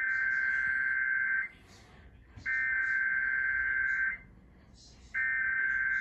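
Emergency Alert System SAME header: three identical bursts of digital data tones, each about a second and a half long and about a second apart, played through a television's speaker. The header encodes a Required Weekly Test, and the third burst is still sounding at the end.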